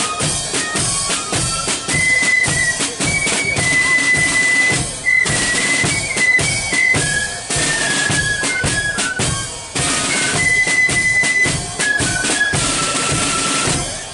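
Marching flute band playing: flutes in unison carry a high tune over rapid side-drum strokes and bass drum beats. The music breaks off near the end.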